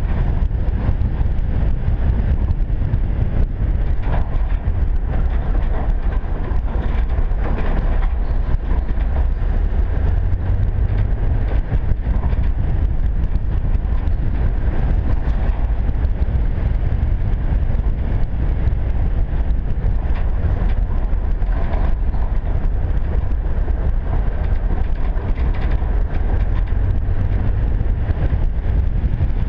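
A vehicle driving on a rough, narrow road, heard from a camera mounted outside on it: a steady low rumble of engine and tyres with wind on the microphone, and small knocks from the bumps throughout.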